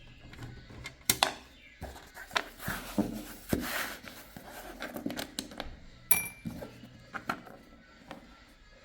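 Clicks, knocks and light metal clinks of a computer case's screws, fan and panels being handled by hand, with a brief scrape near the middle and one short ringing clink about six seconds in.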